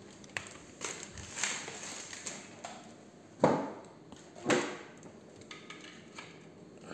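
Irregular knocks, clatter and rustling of objects being handled. The loudest knock comes about three and a half seconds in, and another follows about a second later.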